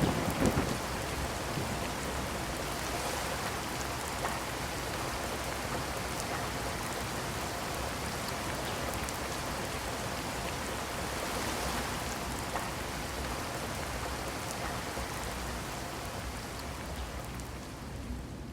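Heavy rain falling steadily, with individual drops ticking on a surface now and then. A brief louder burst comes right at the start.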